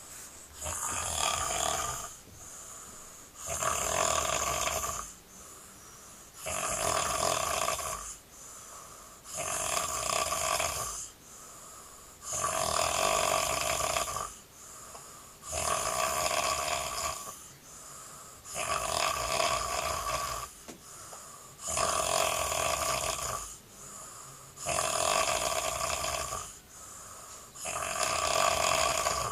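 A man snoring loudly in a steady rhythm: about ten loud snores, one roughly every three seconds, each followed by a quieter breath.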